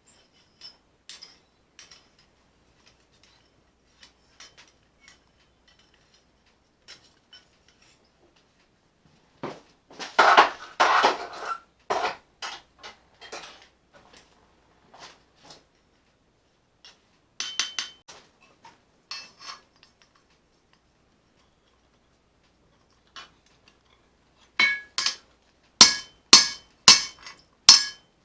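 Hammer forging leaf-spring steel on an anvil: scattered light metallic taps and clinks, a quick flurry of knocks about ten seconds in, then a steady run of ringing hammer blows, about two a second, starting near the end.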